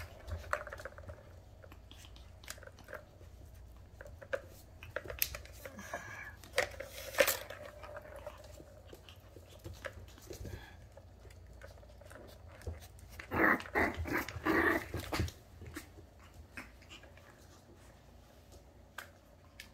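Puppies pawing and mouthing a plastic ball-track tower toy: scattered clicks and knocks of plastic, with a louder flurry about thirteen seconds in that lasts about two seconds.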